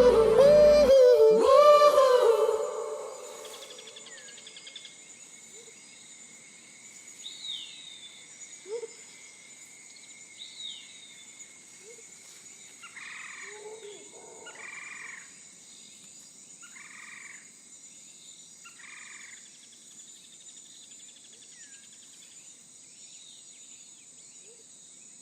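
The tail of a sung pop song fades out in the first couple of seconds, giving way to outdoor nature sound: a steady high-pitched insect chorus, two short falling bird chirps, and a run of four short calls about two seconds apart around the middle.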